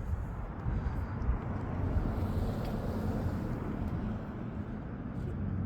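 Outdoor ambience: a steady low rumble.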